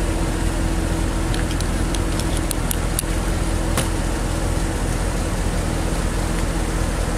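Steady low hum like an idling vehicle engine, under an even hiss, with a few faint clicks about two to four seconds in.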